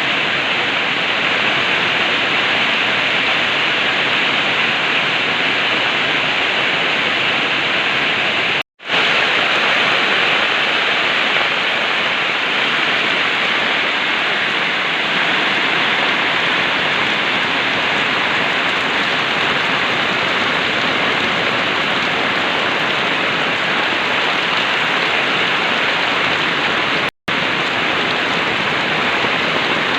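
Heavy rain pouring steadily. The sound cuts out for an instant twice, near nine seconds in and near the end.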